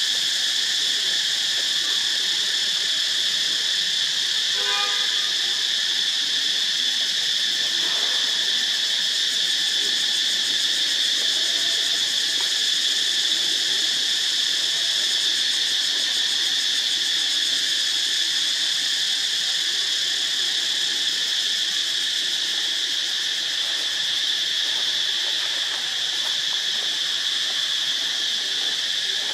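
A dense chorus of insects droning steadily at a high pitch, with a short squeak about five seconds in.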